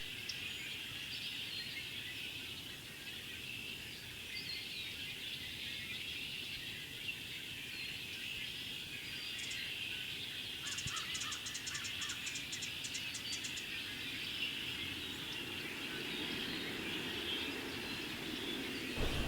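A large mixed flock of red-winged blackbirds and cedar waxwings calling all at once, a dense, steady chorus of chatter. About ten seconds in, a quick run of very high, thin notes stands out for a few seconds.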